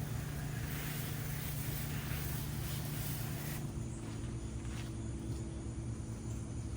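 Soft wash system's 5.5 gallon-per-minute pump running steadily with a low hum, its pitch shifting slightly a little over halfway through, while water spray hisses, swelling and fading.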